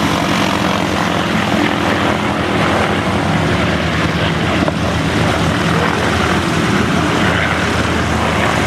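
Formation of three piston-engined warbirds flying past: a Spitfire and a P-51 Mustang with Merlin V12s and a Grumman F8F Bearcat with its big Pratt & Whitney R-2800 radial. Their engines and propellers make a steady combined drone that holds even throughout.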